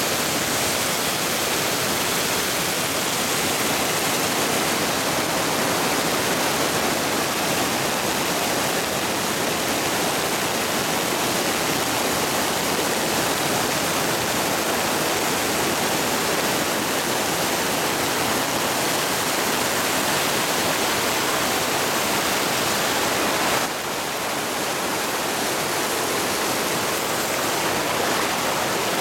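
Steady, loud rush of water during torrential rain and flooding, an even roar with no let-up; it drops slightly in level near the end.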